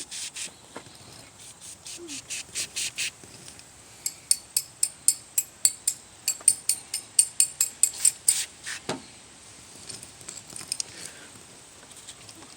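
Battery cleaner being sprayed onto corroded car battery terminals in rapid short hissing bursts, about three to four a second. The spraying stops briefly about 3 s in, resumes about a second later and ends about 9 s in.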